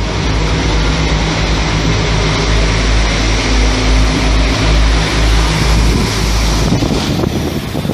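DB class 620 (Alstom Coradia LINT 81) diesel multiple unit pulling out and running past, its diesel engines droning steadily under power, with wind buffeting the microphone. The engine drone drops away about seven seconds in as the train moves off.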